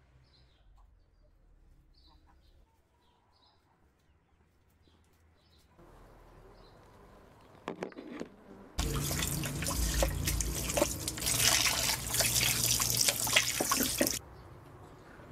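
Tap water running hard onto raw lamb meat in a bowl as it is rinsed; the rush starts abruptly about nine seconds in and cuts off about five seconds later. Before it, faint bird chirps and a couple of sharp knocks.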